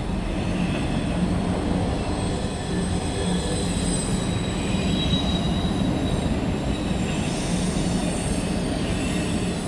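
Empty autorack cars of a CSX freight train rolling past close by: a steady rumble of steel wheels on rail, with a faint high wheel squeal partway through.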